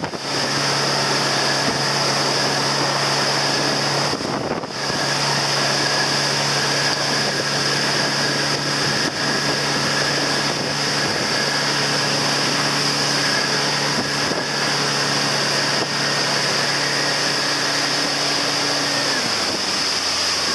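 Motorboat engine running steadily at speed over the hiss of wind on the microphone and the wake. Near the end the engine note drops as the throttle comes off.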